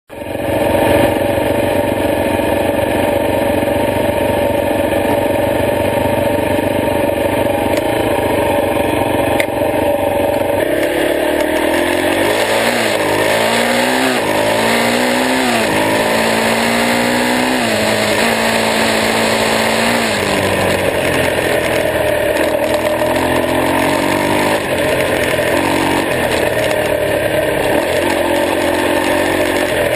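Honda XR250R single-cylinder four-stroke dirt bike engine running while the bike is ridden along a dirt trail. The engine note holds steady for about the first ten seconds, then climbs and drops over and over as it revs up and shifts.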